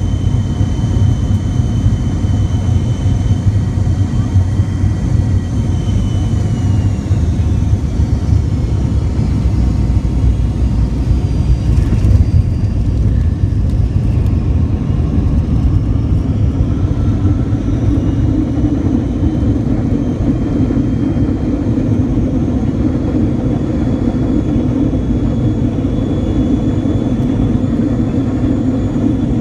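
Cabin noise of an MD-88 landing, its rear-mounted Pratt & Whitney JT8D engines heard from inside: a loud steady rumble with a high whine that falls away as thrust comes off. A single thump about 12 seconds in marks touchdown, and a few seconds later the whine rises again with a heavier, deeper roar as the engines spool up under reverse thrust on the rollout.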